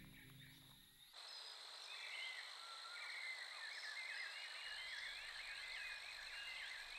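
Forest ambience: a steady high insect drone with a chorus of short, wavering chirping calls, coming in about a second in as the music fades out.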